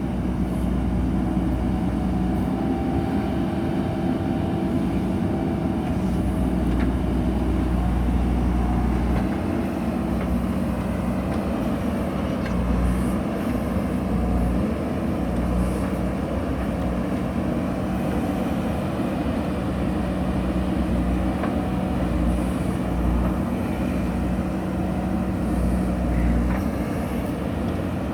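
JCB backhoe loader's diesel engine running steadily, with a deep low rumble that swells and fades every few seconds.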